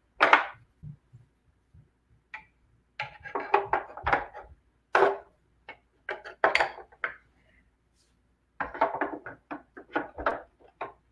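Short clusters of light clicks and knocks as small hard parts are handled and tried against the mounting holes of a statue bust, in several bursts with gaps between them.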